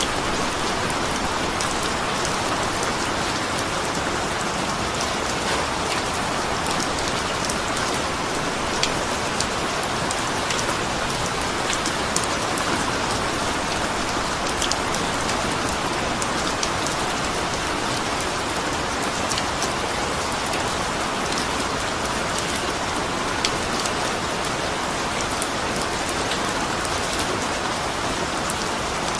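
Steady rain falling on a surface, a dense even hiss with many small sharp drop ticks scattered through it.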